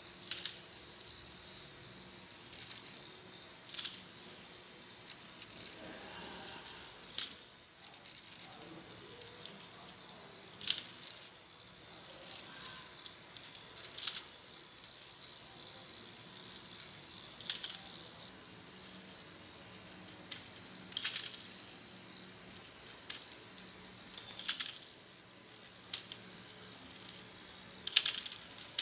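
Battery-powered Zoids Wild Liger walking toy running: its small motor whirring steadily and high, with a sharp click about every three and a half seconds from its walking mechanism.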